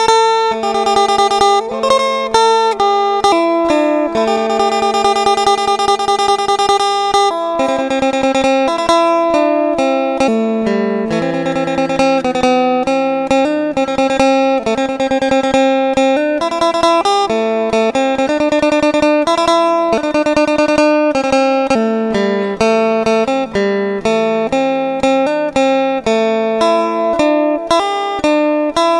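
Northeast Thai (Isan) instrumental folk music: a phin lute plucking a quick, busy melody over a steady drone.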